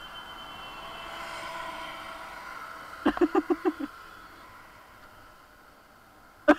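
Motorcycle running at low speed, a faint steady engine note under road noise. About three seconds in comes a quick run of about six short pitched sounds, the loudest part.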